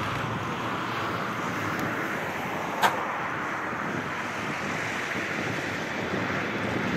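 Boeing 787-8 airliner on low final approach, its jet engines a steady, distant rush of noise. A single sharp click about three seconds in.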